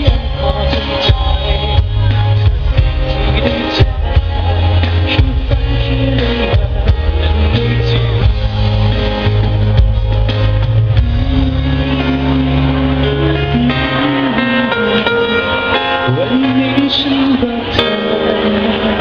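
Live rock band playing through the stage sound system: guitars, bass and drums with a singer. About 14 seconds in the bass and drums drop out, leaving a lighter guitar passage.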